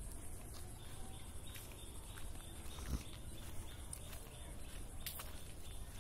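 Rural woodland ambience: a steady high insect drone with scattered short chirps and clicks over a low rumble, and a single thump about three seconds in.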